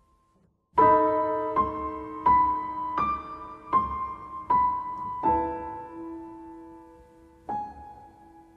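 Solo piano music: after a brief pause, a slow run of struck notes about one every 0.7 seconds, then a gap and one last note left to ring out near the end.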